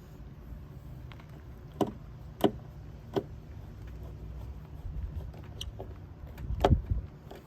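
Hand work on a car door during reassembly: three sharp clicks or knocks about two to three seconds in, then a heavier knock near the end, over a low steady rumble.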